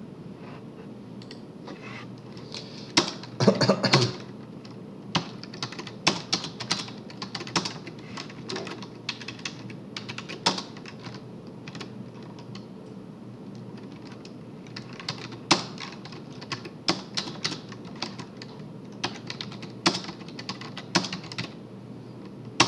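Typing on a computer keyboard: irregular runs of key clicks, with the loudest cluster of clacks about three to four seconds in.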